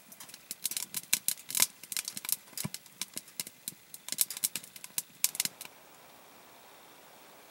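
Wood fire crackling in a small camp stove, with many irregular sharp snaps and pops that stop about five and a half seconds in, leaving a faint steady hiss.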